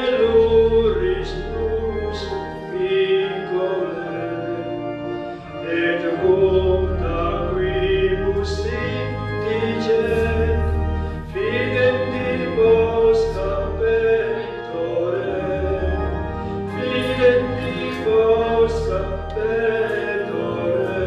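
A hymn sung with organ accompaniment: held organ chords over deep bass notes, with a singing voice above.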